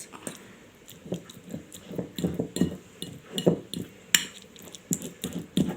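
A fork mashing soft boiled garlic cloves into a paste in a dish: irregular soft squishing strokes, with a sharper clink of the fork against the dish about four seconds in.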